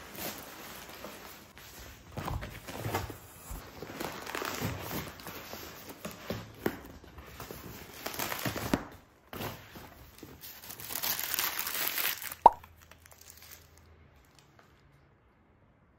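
Rustling and crinkling of white textured packing sheets and paper as tableware is unwrapped from a cardboard box. A single sharp knock with a brief ring comes about twelve and a half seconds in.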